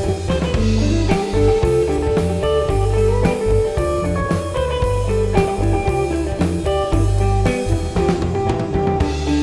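Blues-rock band music: guitar over bass and a drum kit keeping a steady beat.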